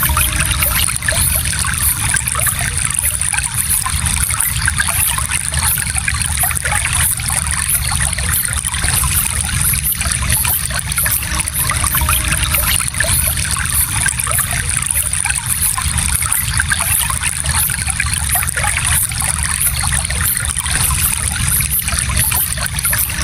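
Gentle stream flowing and trickling over stones, steady and unbroken.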